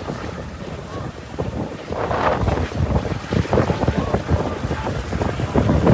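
Strong gusty wind rushing and buffeting the microphone, swelling and easing irregularly, with a louder gust near the end.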